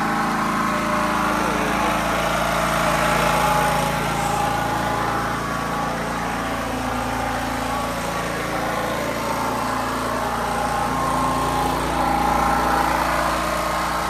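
Small portable generator converted from petrol to LPG (cooking gas), its engine running steadily on gas.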